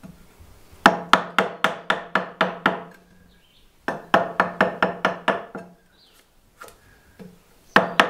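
Round wooden mallet striking a framing chisel into a timber wall plate, chopping a notch to make room for a jigsaw blade. The blows come in quick runs of about four a second: about nine, a short pause, about eight more, and a third run starting near the end.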